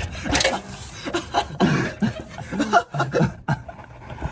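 Men laughing and chuckling, mixed with a few unclear spoken words.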